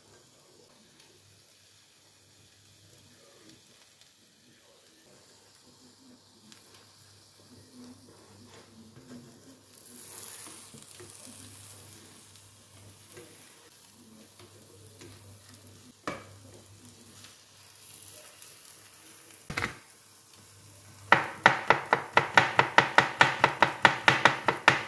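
An omelette frying quietly in a pan, with a spatula working it and two sharp knocks. About four seconds before the end, a loud, fast run of knife chops starts on a wooden cutting board, about seven or eight a second: a garlic clove being chopped.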